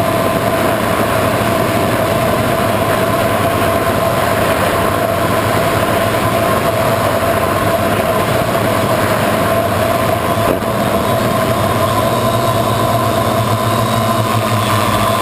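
Multirotor drone's electric motors and propellers humming steadily at a constant pitch, heard from the craft's own onboard camera.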